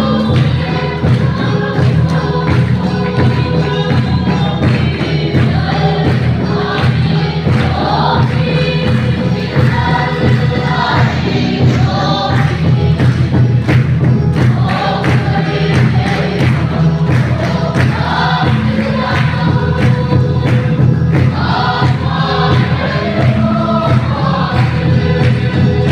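A group of voices singing a gospel song together, over a steady, even drum beat.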